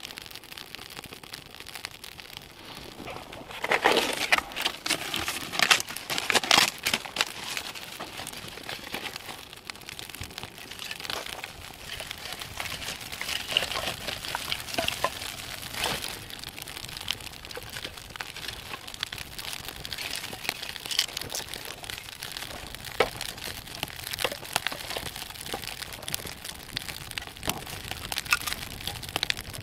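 A newly lit small campfire crackling as dry sticks are handled and fed into it, with irregular snaps and clicks throughout and a louder cluster of snapping and clatter about four to seven seconds in.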